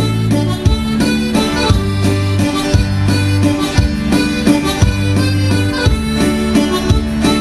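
Recorded instrumental music playing over loudspeakers for dancing: a lead melody over a steady bass and drum beat, in the instrumental break between sung verses.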